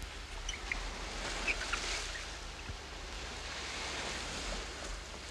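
Sea water washing and lapping against rocks, an even rushing hiss that swells a little after the first second. A few short high bird chirps sound over it in the first two seconds.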